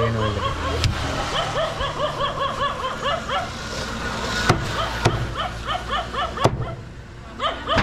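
Heavy cleaver chopping into a large catla fish: four sharp strikes, the first about a second in and the rest bunched in the second half. They sound over a steady low hum and constant rapid chirping.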